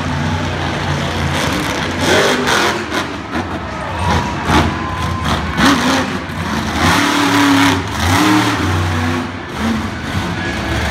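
Monster truck engine revving up and falling back several times as the truck drives over the dirt, with sharp bangs mixed in.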